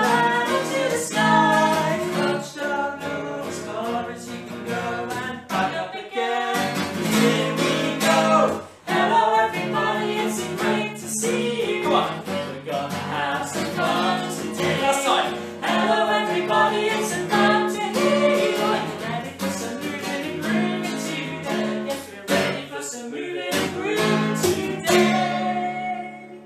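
Steadily strummed acoustic guitar with a man and a woman singing a lively children's song together.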